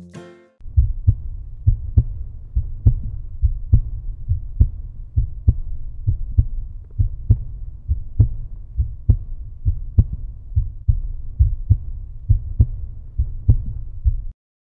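Deep, low thumping pulse like a heartbeat, a little over two beats a second, part of an outro soundtrack. It starts about half a second in and cuts off suddenly near the end.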